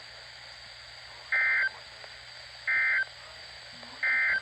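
Three short bursts of EAS SAME digital data over NOAA Weather Radio, each about a third of a second long and spaced about a second and a half apart: the end-of-message code that closes a severe thunderstorm warning broadcast.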